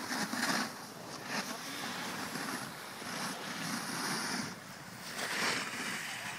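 Wind buffeting a phone's microphone: a steady rushing noise that swells and fades in gusts.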